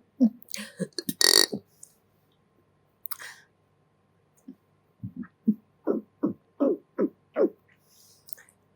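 A person burping: a few short burps, a louder, longer one about a second in, then a run of short burps at about two a second near the end.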